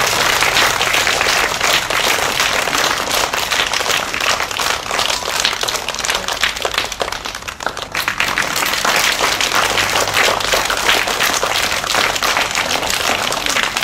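Sustained applause: many hands clapping together, dipping briefly a little past halfway before picking up again.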